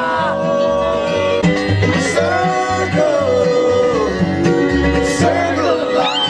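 Upbeat country or bluegrass song with plucked banjo and guitar over a steady bass beat, and a sung melody.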